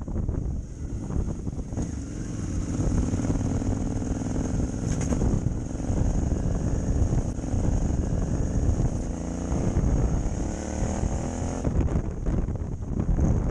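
Motorcycle engine running under load, mixed with wind rumble on the microphone; the engine note rises steadily as the bike accelerates in the second half, then drops away near the end.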